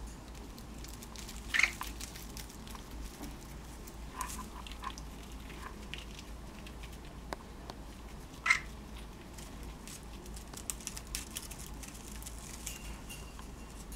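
Pet birds on a wire cage: two brief sharp chirps, one about a second and a half in and one past eight seconds, among scattered light clicks and taps of beaks and claws on the cage.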